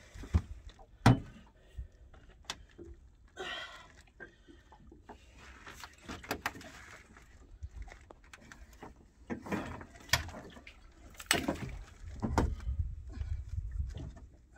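Irregular knocks and clunks of a boat-hook pole and handling against an aluminium dinghy's hull, with a sharp knock about a second in and a cluster of knocks and a low rumble near the end.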